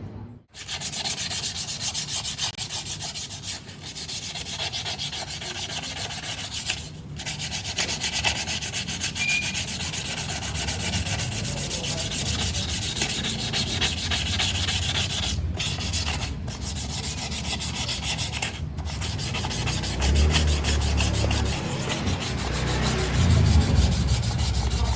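Fast, steady scrubbing and scraping of carbon crust off two-stroke engine parts, with a few short pauses in the strokes.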